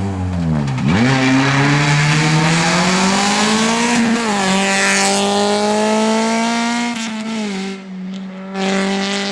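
Honda Civic rally car's engine under hard driving: the revs drop sharply about a second in, climb steadily through the gear to a shift at about four seconds, pull on, then ease off about seven and a half seconds in. A burst of hiss rises over the engine around the middle.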